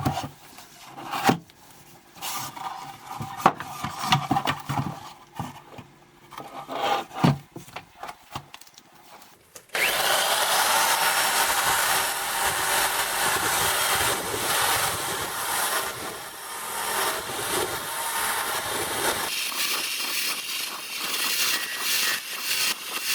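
A wooden artillery box being worked with tools: scattered knocks and clunks of wood being handled, then about ten seconds in a loud, steady rasping of a tool on the wood starts abruptly and runs on.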